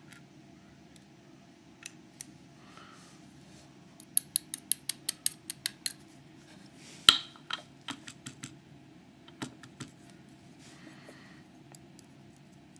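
Small metallic clicks and taps from a Master Lock ProSeries 7040's core and pins being taken apart by hand. About four seconds in comes a quick run of about a dozen sharp clicks, then one louder knock about a second later, with a few lighter clicks after.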